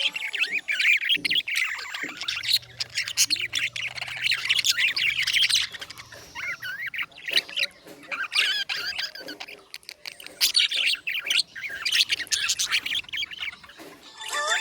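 Budgerigars chirping and warbling in quick, rapid clusters of high chirps with brief lulls between them, the busy chatter of contented budgies.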